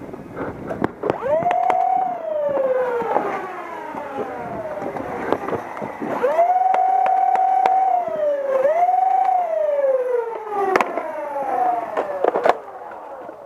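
Flywheel motors of a dual-stage foam-dart blaster spinning up with a quick rising whine, holding, then winding down slowly, three times. Sharp clicks are scattered between.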